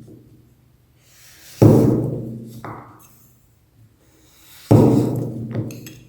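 Deep booming drum-like hits, two of them about three seconds apart, each with a short swell leading in and ringing out over about a second.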